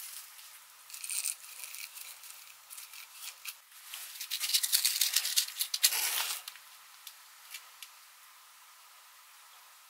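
Small handling rattles and clicks from a matchbox, then, about four seconds in, a match scratched hard against the matchbox striker for a couple of seconds, catching with a short flare about six seconds in; fairly quiet after.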